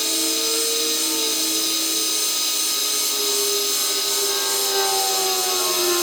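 Heat gun running steadily, a motor whine over a rush of hot air, warming the dirt bike's wheel hub so it expands to take a new bearing.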